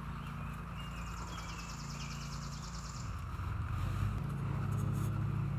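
Low, steady engine hum, growing louder about three seconds in.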